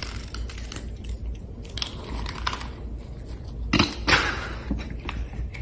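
Cats crunching dry kibble from a bowl: a run of small crunches and clicks, with two louder noisy bursts about four seconds in.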